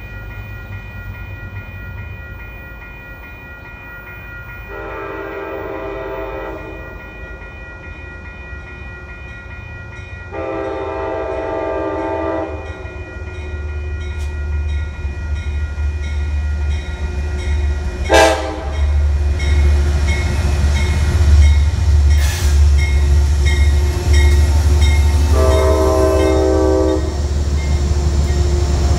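Metro-North P32AC-DM diesel locomotive approaching and sounding its horn: two long blasts, a short toot, then a final long blast. The diesel's low rumble builds through the second half as the locomotive draws level.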